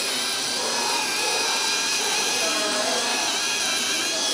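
Dental polishing handpiece with a prophy cup running against a dog's teeth: a steady high whine over a hiss, as the teeth are polished after ultrasonic scaling.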